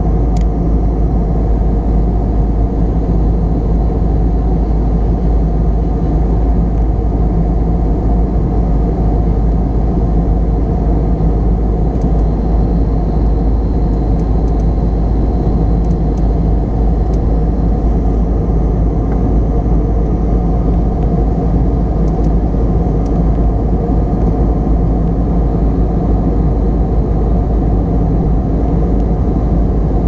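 Steady cabin noise of an airliner in cruise flight: a constant deep rumble of engine and airflow, strongest in the bass with little high-pitched content.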